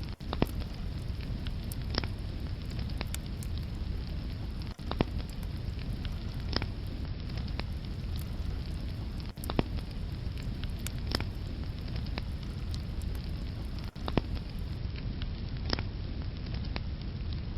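Wood fire burning in a fireplace: a steady low rumble of flames with sharp crackles and pops every couple of seconds.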